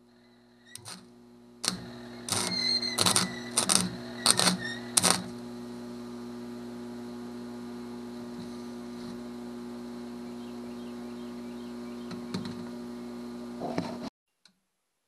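Small flux-core MIG welder (MIG 100) striking an arc on galvanized steel tube in about six short crackling bursts, over the welder's steady hum. The hum cuts off suddenly near the end.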